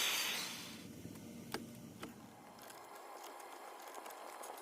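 A hiss dying away at the start, then two light clicks about half a second apart over otherwise quiet room tone.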